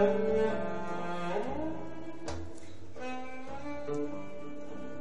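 Cello-led orchestral film music playing from a vinyl LP through hi-fi loudspeakers, with a bowed note sliding upward about a second and a half in and a sharp percussive click a little later.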